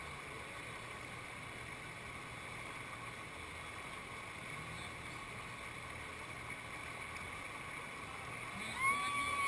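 Steady rush of whitewater pouring over a river ledge into a standing wave. Near the end comes a single short, high tone, louder than the water.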